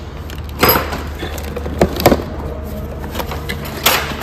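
Clear plastic packaging bag crinkling and a small cardboard parts box being handled, heard as a few short rustling bursts over a steady low hum.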